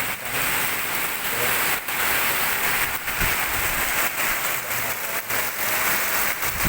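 Heavy tropical rain pouring down, a dense steady hiss.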